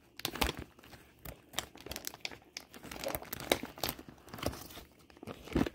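Plastic packaging of sliced smoked turkey lunch meat crinkling and crackling in irregular bursts as it is handled.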